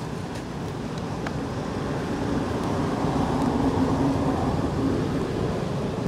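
Low rumble of a passing motor vehicle, growing louder to a peak about four seconds in and easing off near the end.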